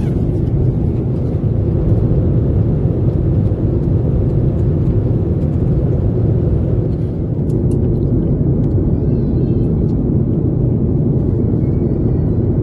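Steady low rumble of a jet airliner's cabin in cruise, engine and airflow noise heard inside the cabin.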